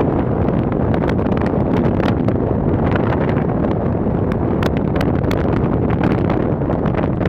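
Wind buffeting the microphone: a loud, steady rumble with scattered crackles.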